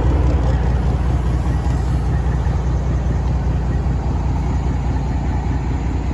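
Truck's freshly overhauled 12.7-litre Detroit Diesel Series 60 inline-six idling steadily, warmed up.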